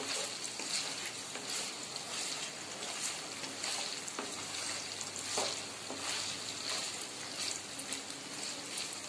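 Boiled mutton pieces sizzling as they fry in oil in a pan, being browned, with repeated strokes of a wooden spatula stirring them.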